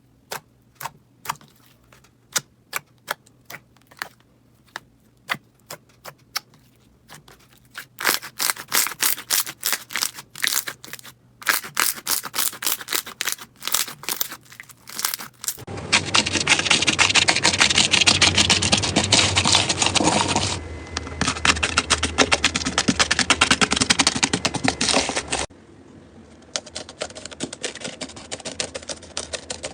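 Slime being pressed and poked, giving sharp clicks and pops. At first there are about two a second. They grow denser after several seconds, and about halfway through they become a loud, continuous crunchy crackle for about ten seconds before dropping to a softer crackle.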